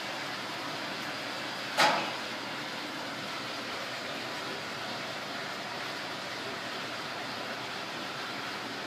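A steady rushing noise, with one sharp knock a little under two seconds in.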